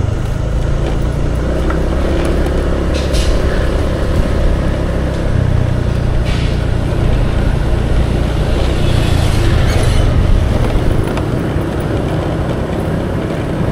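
Road noise while travelling along a city street: a steady low vehicle rumble, with a few brief hissy swells.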